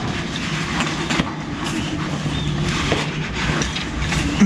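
A camping backpack with a mountain bike strapped to it being heaved onto someone's back: scattered knocks and rustles over a steady low hum.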